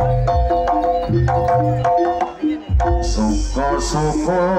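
Live Javanese jaranan ensemble music: hand drums and pitched metal percussion playing a repeated pattern. A short break comes a little past halfway, then a wavering melody line enters with a high hiss of cymbals.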